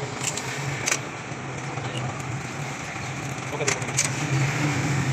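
Workshop background: a steady low engine drone, with a few sharp metallic clicks about a second in and twice near the end.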